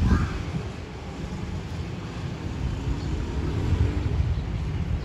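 Alsthom diesel locomotive approaching at a distance, a steady low rumble.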